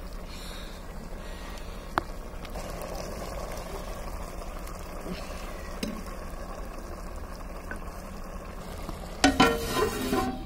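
Vegetables sizzling steadily in an open clay pot over a wood fire. Near the end, a steel plate lid clatters against the pot several times.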